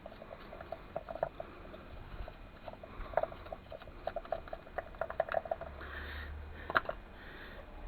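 A run of small, irregular clicks and scratches, like hands handling and scraping a crumbly cast object, busiest a few seconds in, with one sharper click near the end.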